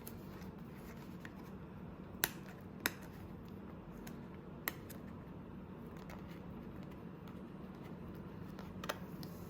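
A few sharp clicks and taps from a small cardboard product box being handled and opened, over a faint steady low hum.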